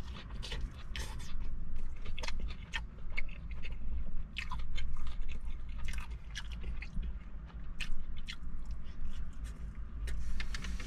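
Close-up chewing and biting of food, with many irregular sharp mouth clicks over a steady low rumble.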